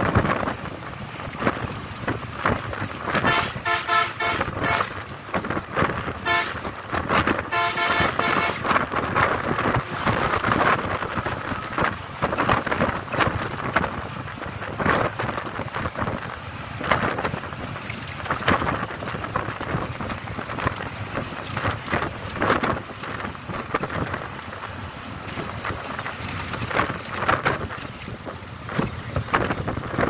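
Road and wind noise of a moving vehicle heard from inside it, with a vehicle horn honking several times between about 3 and 9 seconds in.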